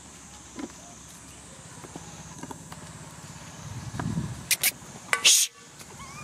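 Short, harsh squeals of young long-tailed macaques: two quick cries and then a longer, louder one in the last two seconds. A steady low hum, like an idling engine, runs underneath.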